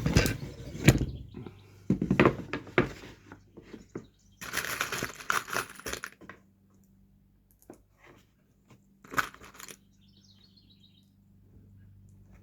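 Wooden fence-picket boards being handled and fitted on a workbench: several sharp knocks, a scraping slide of about a second and a half midway, and one more knock. A short run of bird chirps sounds near the end.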